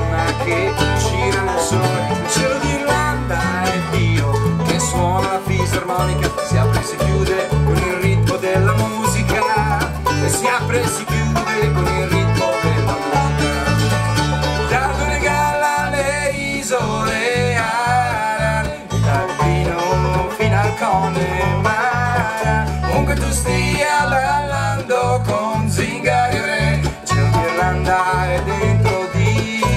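Bluegrass band playing live: banjo, mandolin, acoustic guitar and bass guitar, the bass plucking a steady beat.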